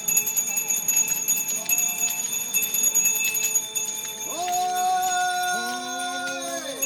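Zen monks on a takuhatsu alms round calling out long drawn "Hō" cries. About four seconds in, several voices overlap at different pitches, each held for a second or two before dropping away, over a steady ringing of small bells.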